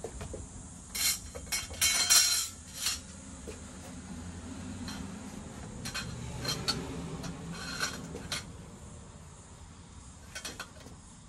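Metal clanking and scraping of a squirrel-cage blower wheel being worked loose and pulled out of a sheet-metal air-conditioner fan housing, with a cluster of sharp knocks in the first three seconds and more from about five to eight seconds in.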